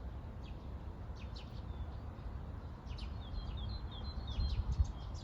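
Small birds chirping, with short high chirps and quick repeated notes scattered throughout, over a low steady rumble.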